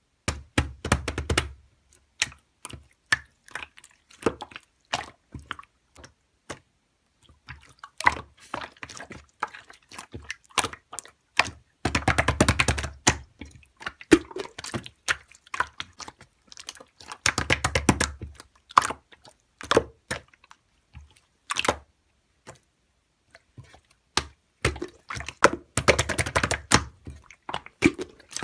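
Slime being squished and poked by hand, making quick runs of sticky clicks and small wet pops, with a few longer squelching bursts.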